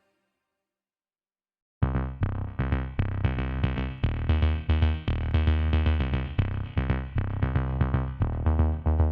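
Silence for almost two seconds, then electronic music with a drum-machine beat and synthesizer starts suddenly.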